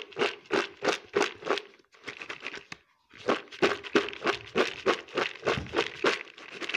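Dry gabgab (coral tree) wood chips rustling and crunching as they are stirred by hand in a bowl with raw humra, in an even rhythm of about three strokes a second. It goes quieter for about a second, about two seconds in.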